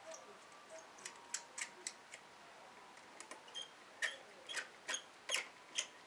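Light metallic clicks and taps, about a dozen at irregular intervals and closer together in the second half, as the end cap is fitted onto the front-wheel axle by hand.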